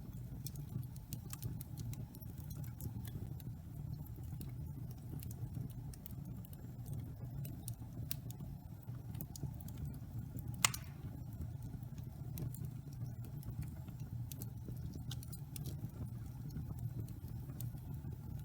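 Wood fire burning in a fireplace: a steady low rumble of flames with frequent small crackles and one louder pop midway.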